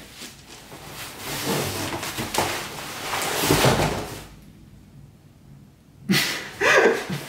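Bubble wrap rustling and a cardboard box scraping and knocking as they are handled and packed, loudest about three and a half seconds in. After a quieter pause of about two seconds, the handling noise starts again near the end.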